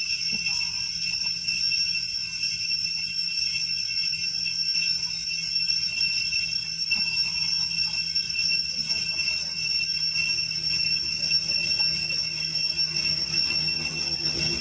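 Forest insects droning steadily, a continuous high-pitched ringing chorus that holds one pitch.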